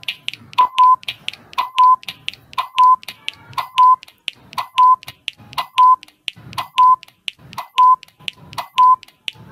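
Quiz countdown timer sound effect: quick clicks at about four a second, with a short double beep once every second, repeating steadily as the seconds count down.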